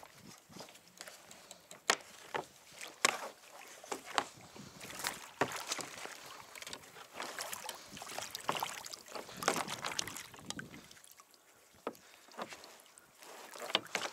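Water sloshing and slapping against a plastic fishing kayak, with irregular sharp knocks and clatters as things are handled on the hull.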